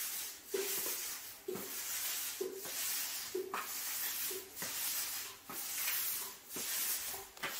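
Paint roller on an extension pole rolling wet epoxy top coat over a flake-broadcast garage floor: a hissing, sticky rubbing that swells and dips with each back-and-forth stroke, about once a second.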